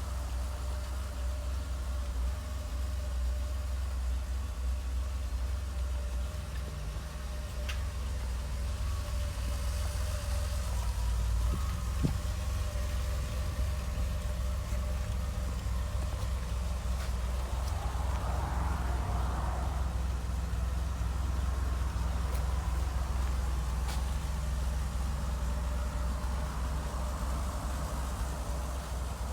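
A car engine idling with a steady low rumble, likely the DeLorean's V6, running while its turn signals flash.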